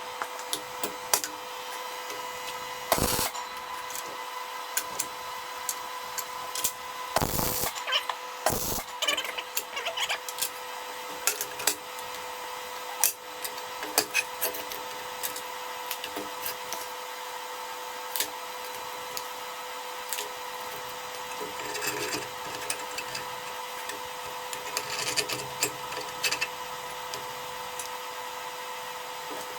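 Electric arc welding on steel: an irregular crackle and spit over a steady electrical hum, with a few louder pops.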